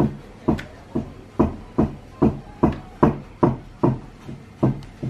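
A hand rhythmically patting and pressing pizza dough flat on a wooden countertop. The pats are short, even thuds, about two and a half a second.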